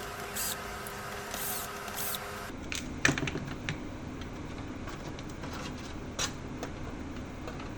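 Scattered clicks and knocks of hands handling the parts of an electronic controller: plastic connectors, cards and circuit boards being pulled and set down, with the loudest knock about three seconds in. A steady hum runs under the first two and a half seconds, then stops.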